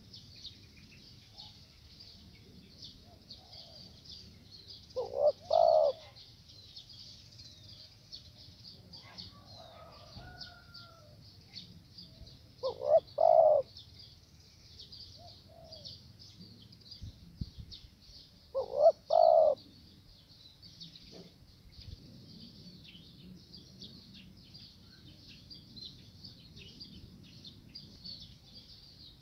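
Spotted dove cooing, three short call phrases several seconds apart, each a quick run of two or three notes. A steady high insect chorus shrills underneath.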